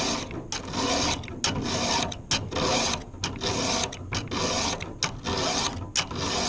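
Round chainsaw file rasping across a saw chain cutter in repeated strokes, about two a second, with sharp clicks between strokes as the file is lifted and set back on the tooth. The stage is the sharpening of a damaged cutter, working from the gullet back towards the top plate.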